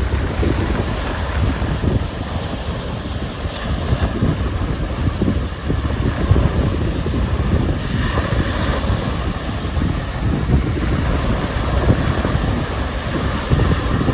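Wind-driven waves washing onto the shore of a large lake, with strong wind buffeting the microphone. A louder wash of surf comes about two-thirds of the way through.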